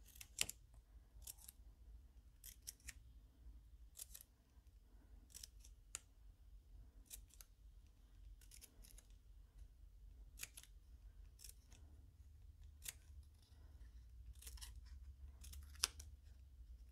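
Scissors cutting thin cardstock: a long series of short, faint snips, often in quick pairs, as small triangular notches are cut in up to a fold line.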